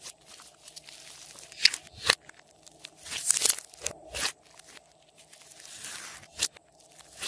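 Glossy slime being squeezed and kneaded by hand: sticky crackling and squelching, broken by several sharp pops as trapped air bubbles burst.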